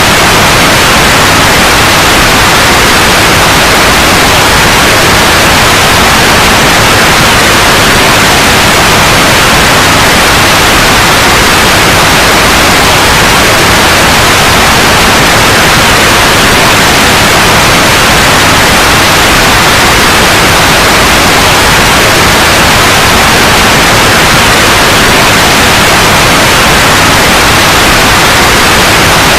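Loud, steady white noise: an even hiss with no change or break.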